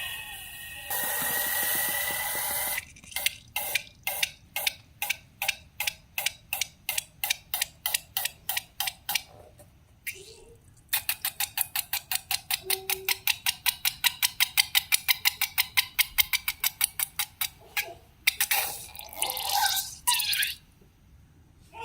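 Slime being stirred or worked in a bowl, making runs of sticky, wet clicks: about three a second at first, then after a short pause a faster run of about seven a second, with brief squelching bursts at the start and near the end.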